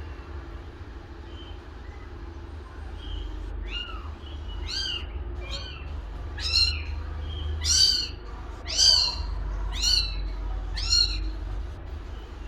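A kitten meowing: a series of about eight short, high-pitched meows, roughly one a second, starting about three and a half seconds in.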